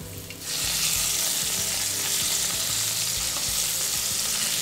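Floured chicken breasts frying in olive oil in a non-stick pan over medium-high heat: a steady, hissing sizzle that comes in suddenly about half a second in as the chicken browns.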